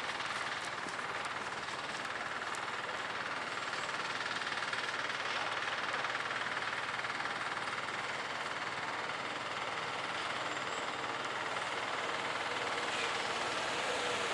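Freight train hauled by a JR Freight EF210 electric locomotive approaching: a steady rumble and hiss of rolling stock on the rails, slowly growing louder.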